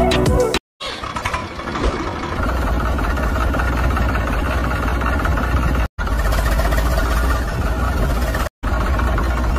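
Tractor engine starting about a second in, then running steadily at idle; the engine sound drops out abruptly twice for a moment. A few notes of fiddle music end just as it begins.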